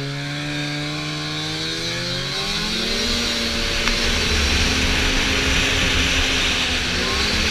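Snowmobile engine running under throttle while riding along a snowy trail, its pitch climbing about two seconds in and again near the end as speed picks up. A low rumble grows beneath it from about halfway.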